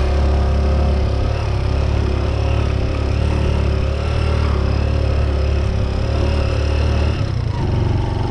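Small motorcycle engine running at a steady speed under way on a rough dirt track, heard from the rider's seat. The engine note drops and changes about seven seconds in.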